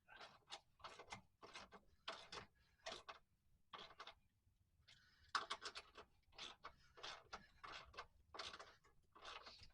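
Hand ratchet wrench clicking in quick strokes, about two a second, as bolts are run in on a transmission mount, with a short pause around four seconds in.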